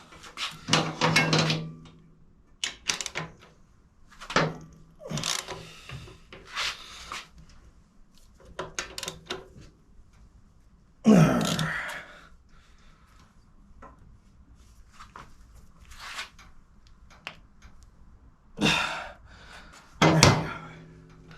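Hand tools working on a motorcycle: a spanner and socket clinking and knocking at irregular moments as nuts and bolts are done up, with one louder knock about halfway through.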